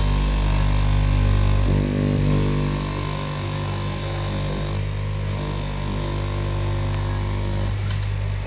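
Electric straight-knife cloth cutting machine running with a steady motor hum as it cuts through a stacked lay of denim.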